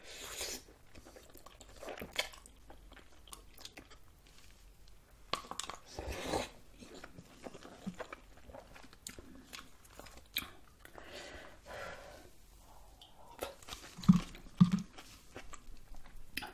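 Close-up eating sounds: a slurp of ramen noodles from spicy soup, then irregular wet chewing with small mouth clicks and smacks. Two short low hums from the eater near the end are the loudest sounds.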